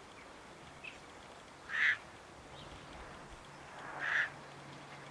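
A duck quacking twice, about two seconds apart.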